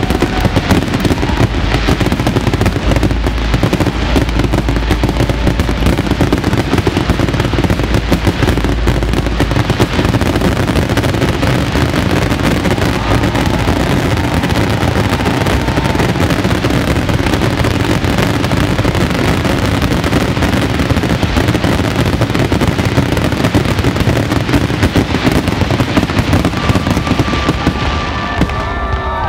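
Dense, rapid barrage of aerial fireworks shells bursting and crackling, the bangs coming too fast to count, with no let-up.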